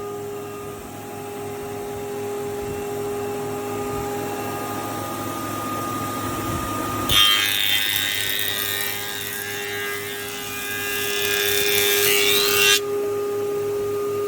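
STU 630 thicknesser, with a four-knife cutterhead and a 7.5 kW motor, running with a steady hum. About seven seconds in, a board enters the cutterhead and is planed for about six seconds with a loud cutting noise. The noise stops abruptly as the board passes through, leaving the machine running.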